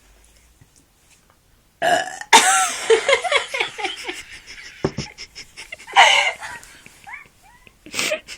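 A person burping: after a quiet start, a long, loud burp begins about two seconds in and wavers in pitch for a few seconds, with another loud burp around six seconds in.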